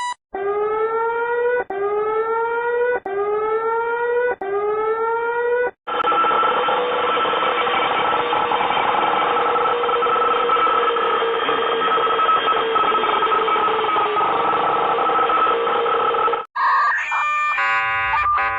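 Mock Emergency Alert System alarm: four rising whooping sweeps, each about a second and a half long, then a steady harsh buzzing alarm tone held for about ten seconds, and near the end a short run of stepped electronic beeps of changing pitch.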